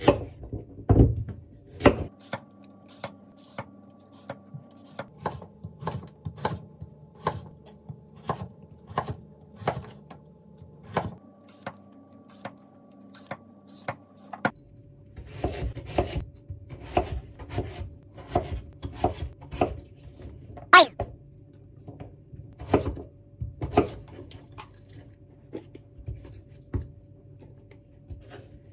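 Kitchen knife chopping carrot and daikon radish on a wooden cutting board: a run of sharp knocks, roughly one to two a second, growing closer together about halfway through, over a faint steady hum.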